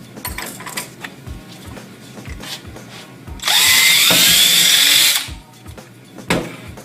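Power drill with a small bit spinning up and boring a pilot hole into a wooden cabinet, running for under two seconds about halfway in. Background music with a steady beat plays throughout, and there is a short knock near the end.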